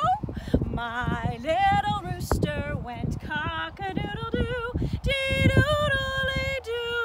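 A woman singing a children's folk song unaccompanied, with held notes and vibrato, while wind buffets the microphone with a low rumble.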